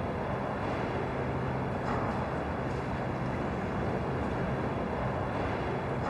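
Steady, even background drone with no distinct events.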